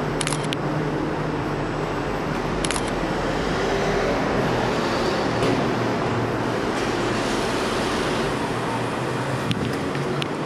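Steady low rumble and hiss of parking-garage ambience, like traffic and ventilation, with a few brief clicks.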